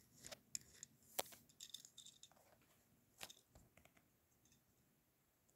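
Near silence with a few faint, scattered clicks and taps of handling, which stop about four seconds in.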